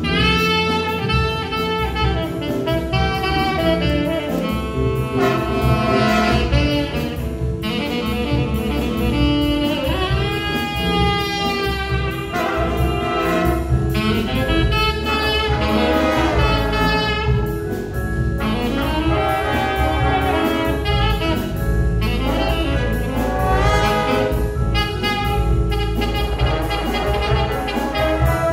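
High school jazz big band playing live: saxophones, trombones and trumpets over drums, with a saxophone melody line standing out above the ensemble.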